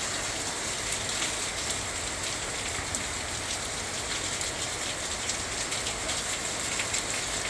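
Heavy rain pouring down and pattering on surfaces, a steady hiss with many small drop impacts.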